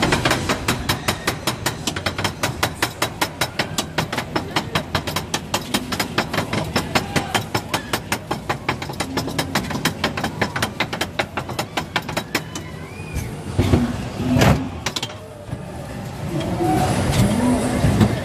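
Ghost-train car on its outside track, clacking evenly about four to five times a second as it climbs an incline, the clacks slowing and stopping about two thirds of the way in. Then comes a louder clatter with a sharp knock.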